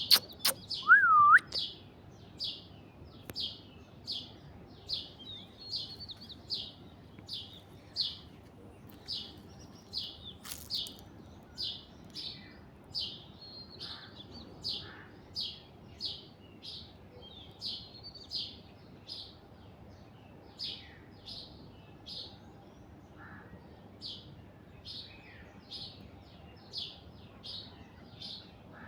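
A bird repeating a short, high chirp about twice a second in an even run. In the first two seconds there are also a couple of louder, lower whistled notes that rise and fall.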